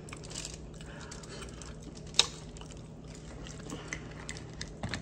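Mouth chewing mussels, with small clicks from mussel shells being handled and knocked together, the sharpest about two seconds in.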